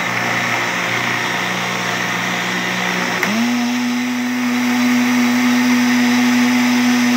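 Electric countertop blender running, blending a liquid pudding batter of milk, eggs, sugar and cornstarch biscuits with a steady motor hum. About three seconds in there is a click, and the hum steps up to a higher pitch and holds there.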